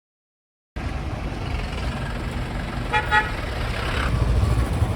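Silence, then from about a second in a steady low motor-traffic rumble, with a vehicle horn giving two short toots about three seconds in.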